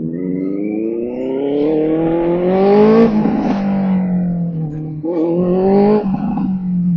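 Benelli TNT 600i's inline-four engine, breathing through an Akrapovič exhaust, accelerating. The revs rise steadily and drop sharply at an upshift about three seconds in, then climb again before a second shift near the end.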